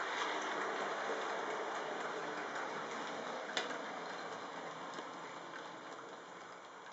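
HO-scale Trix GG1 model locomotive and its freight cars rolling on the layout's track with no sound decoder fitted: a steady rattling patter of small wheels and mechanism on the rails, with light ticks over rail joints and one sharper click about three and a half seconds in. It grows gradually quieter.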